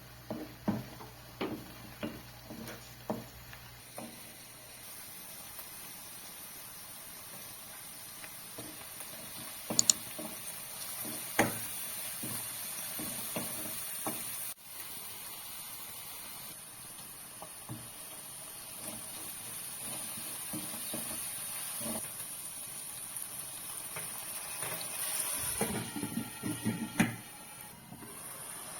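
Knife chopping on a board, about a dozen quick strokes, then a steady hiss that grows slowly louder, with scattered clinks and a short run of knocks near the end.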